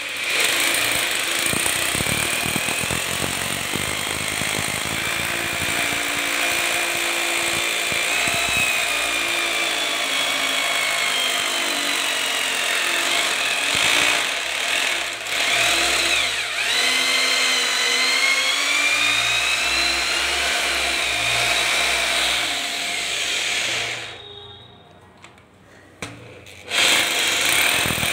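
Electric drill boring bolt holes into a tiled floor, its motor whine rising and falling in pitch as the bit loads up. Near the end it stops for about two seconds, then starts again.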